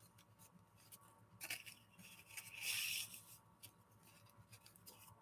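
Faint rustling and crinkling of a crepe paper streamer strip being folded in half by hand, in a few short bouts, the clearest about one and a half and three seconds in.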